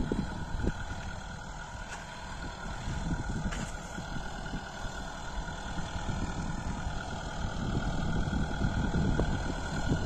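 Kubota MU5502 tractor's four-cylinder diesel engine running steadily under load as it works tilled soil for bed preparation, growing louder as it approaches.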